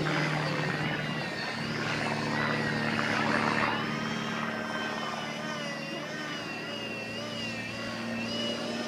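Radio-controlled model airplane's motor and propeller droning in flight overhead. Its pitch wavers up and down in the second half, over a steady low hum.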